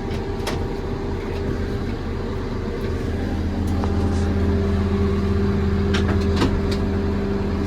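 JCB 3CX backhoe loader's 4.4-litre diesel engine running steadily at idle, heard from inside the cab, its hum growing a little louder about three seconds in. A few sharp clicks and knocks from the seat adjustment levers being worked.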